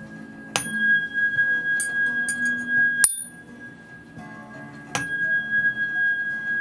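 Metal therapeutic tuning fork struck three times, about half a second in, at three seconds and at five seconds, each strike followed by a steady, high, pure ringing tone that carries on between strikes.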